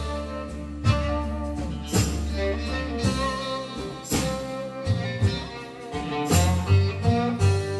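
Background music: an instrumental track with a bass line and a strong beat about once a second.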